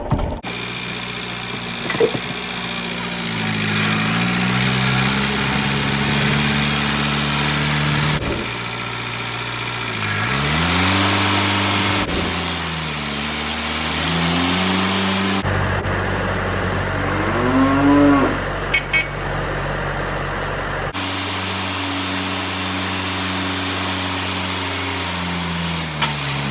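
Homelite XL-76 chainsaw with a muffler mod, running at high speed through cuts. Its pitch sags as the 24-inch skip-chain bar loads up in the wood and climbs again as it frees up, with one quick rev about 18 seconds in. The sound jumps abruptly a few times between takes.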